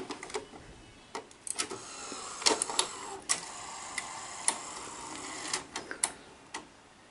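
Sony SL-2300 Betamax VCR taking in a cassette through its front slot, with a few clicks, then its loading mechanism running with a steady whir and scattered clicks as it pulls the cassette in and threads the tape.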